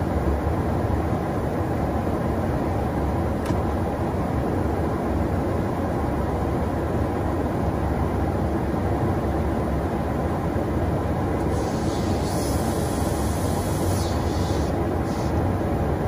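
Steady low rumble of engine and airflow noise inside a KC-135 Stratotanker's boom operator pod in flight. There is a faint click about three and a half seconds in, and a brief higher hiss joins the rumble for a few seconds near the end.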